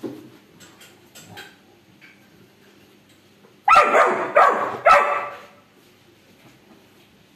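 Labrador puppy barking three times in quick succession, a little past halfway, at a Rottweiler holding its toy.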